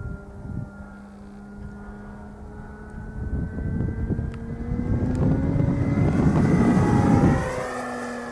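Engine of a radio-controlled P-47 Thunderbolt model plane droning in flight. It grows louder as the plane comes closer, then falls in pitch as it passes and moves away near the end. A low rumble of wind on the microphone swells through the middle and cuts off suddenly.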